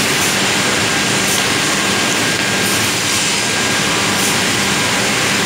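Automatic three-head wood drilling machine running, its spindles drilling into a wooden chair part with a steady, even mechanical noise.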